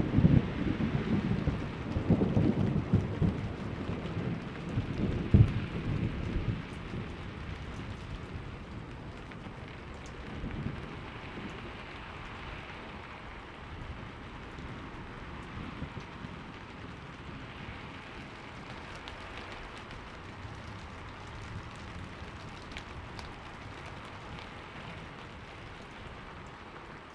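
Thunderstorm: a low roll of thunder fading away over the first several seconds, with one sharper clap about five seconds in, then steady rain falling.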